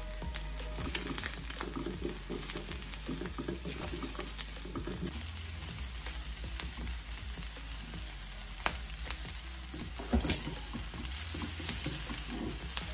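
Stir-fry sizzling in a hot oiled frying pan while vegetables, sausage, egg and then instant noodles are turned with a wooden spatula, which scrapes steadily through the food. There are a couple of sharper knocks in the second half.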